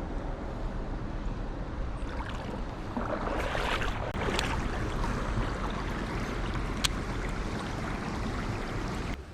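Strong wind buffeting the microphone: a steady low rumbling noise that swells into a louder hiss about three seconds in, with a couple of sharp clicks partway through.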